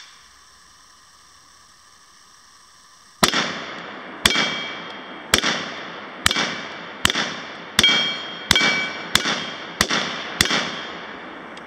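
Ten rifle shots from a 7.62x39 AK-pattern rifle, fired one at a time about a second apart and starting about three seconds in. Each shot trails off in a short echo.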